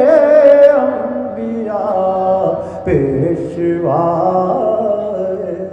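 Male voice singing a naat, an Urdu devotional poem in praise of the Prophet, in long drawn-out notes without instruments; a short break about three seconds in, then a new sung phrase.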